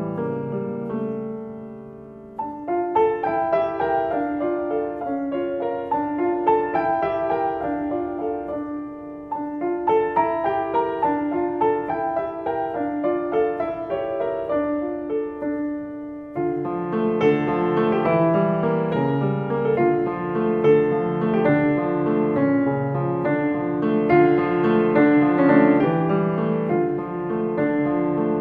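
Slow solo piano music. It thins out briefly about two seconds in, and a fuller, lower part comes in a little past the halfway point.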